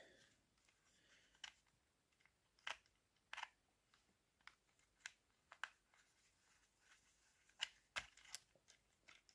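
Faint, scattered small clicks and taps of a small screwdriver working screws out of a plastic model locomotive body, about eight irregular clicks.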